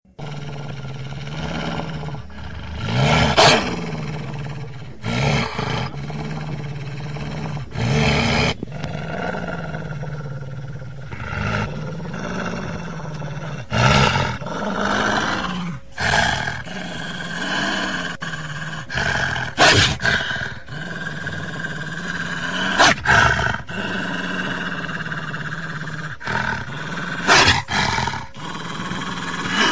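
Dog growling in a long, low, wavering rumble, breaking into louder roar-like outbursts every few seconds.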